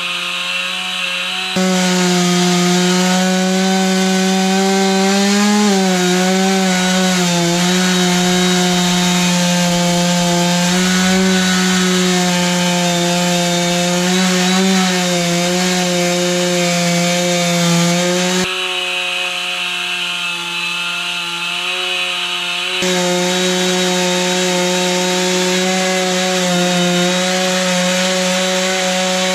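Stihl MS460 two-stroke chainsaw running at full throttle with a 36-inch bar and ripping chain, cutting lengthwise through a red oak log in an Alaskan chainsaw mill. The engine holds a steady high pitch under load, sagging briefly now and then as the chain bites.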